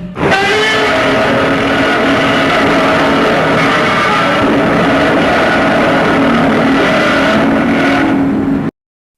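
Shin Godzilla roar sound effect: one long, loud roar lasting about eight and a half seconds that cuts off suddenly near the end.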